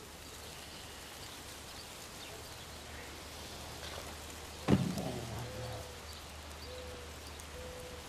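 Faint steady background hiss over a low hum. One short sudden sound comes a little past halfway, followed by three faint, brief steady notes.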